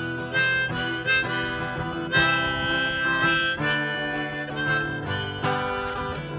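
Harmonica played from a neck holder over a strummed acoustic guitar, an instrumental break between sung verses; the harmonica moves between notes and holds one long note from about two seconds in.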